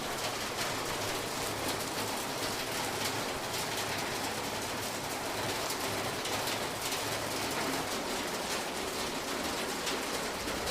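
A steady, even hiss of noise with fine ticking all through it, much like rain falling on a surface.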